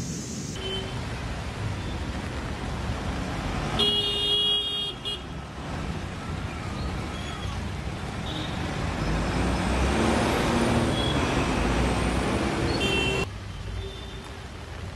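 Road traffic in heavy rain: vehicles on a waterlogged road under a steady downpour, with a car horn honking for about a second around four seconds in and a few short toots later. Near the end the traffic drops away, leaving mostly rain.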